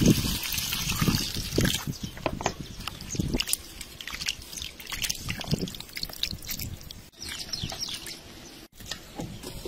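Hands washing a bowlful of small raw fish in water: a busy run of wet squelches, splashes and drips, loudest in the first few seconds.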